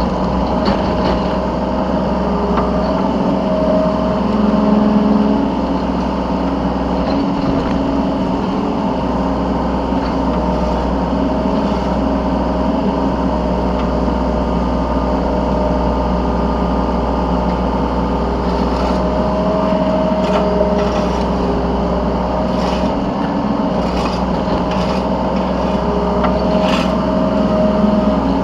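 Yanmar B3Σ 3-ton mini excavator's diesel engine running steadily under hydraulic work, heard from the operator's seat, swelling louder briefly about four seconds in. Several short knocks come in the second half.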